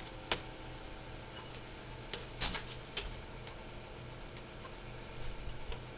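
Metal fork tapping against a ceramic bowl as a toddler picks at avocado chunks: a sharp tap about a third of a second in, a cluster of clicks around two to three seconds in, and a few light ones near the end.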